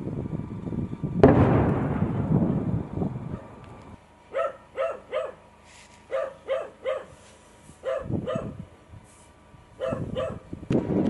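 A dog barking repeatedly in quick runs of two or three short barks. About a second in, a sudden loud bang fades away over a couple of seconds and is the loudest thing heard.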